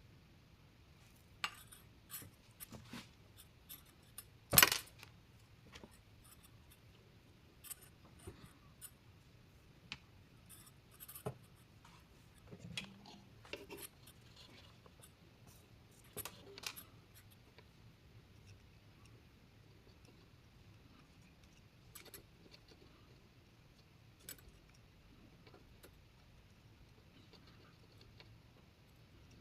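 Scattered clicks and clinks of small metal tools and parts being handled on a workbench, with one sharp knock about four and a half seconds in.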